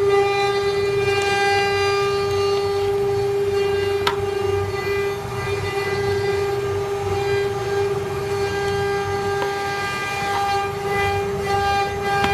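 CNC router spindle running at a steady high-pitched whine, with a lower rumble under it and a sharp click about four seconds in.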